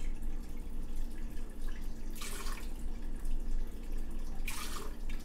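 Tequila pouring from a glass bottle into a blender jar, a running trickle of liquid with two brief louder gushes, about two seconds in and near the end.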